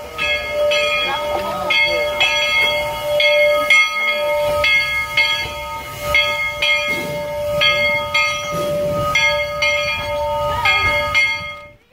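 Steam locomotive bell on narrow-gauge B&SR No. 7 ringing steadily, about two strokes a second, each stroke ringing on; it cuts off suddenly near the end.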